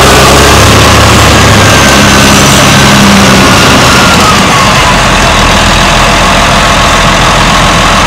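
Caterpillar D7R Series II bulldozer's diesel engine running loud and steady, its note shifting about halfway through, with a short falling whine.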